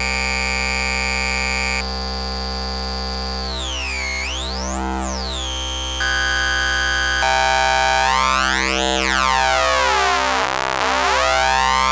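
Eurorack modular synth tone: a triangle wave crushed by a Doepfer A-189-1 bit modifier and passed through a resonant high-pass filter, giving one steady, buzzy pitch. Its timbre jumps abruptly a few times as the bit setting is changed, and in between it sweeps in rippling, phasing-like swirls as the knobs are turned.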